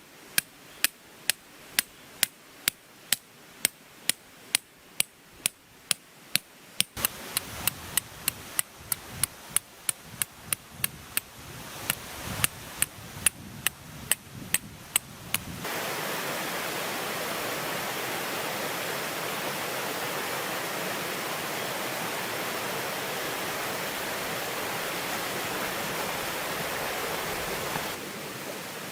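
A steady run of sharp knocks, about two to three a second, for roughly the first half, then the knocking stops abruptly and a steady rushing noise, like running water, takes over and drops a little near the end.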